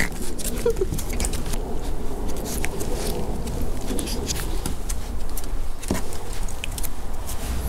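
Rustling and crackling handling noise from a toy poodle puppy's fur rubbing against the phone's microphone, over a low wind rumble. A dove coos in the background.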